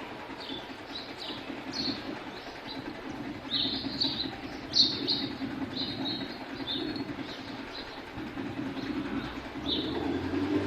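House sparrows chirping: short, repeated chirps in quick irregular succession, loudest about five seconds in, over a steady low rumble.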